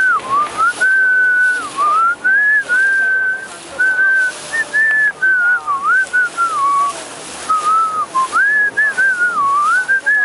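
A person whistling a tune: a single clear, pure melody line moving up and down between notes, with short pauses between phrases.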